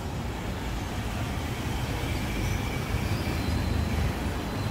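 Street noise with motor traffic: a steady low rumble with no distinct events.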